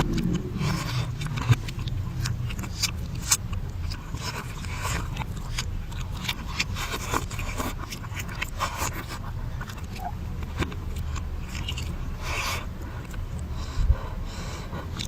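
Close-miked mukbang eating sounds played in reverse: irregular crunchy clicks, scrapes and chewing noises over a steady low rumble.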